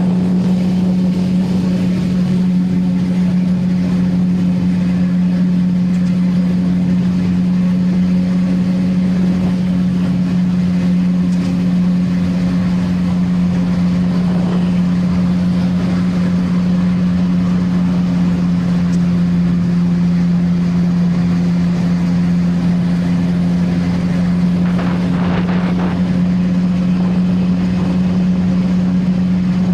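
CFMoto 675NK motorcycle's inline-three engine on its stock exhaust, running at a steady cruising speed with an even drone that barely changes in pitch.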